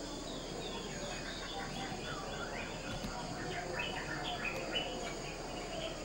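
Recorded jungle ambience played in a walk-through display: a busy chorus of short bird calls and chirps over a steady high insect buzz.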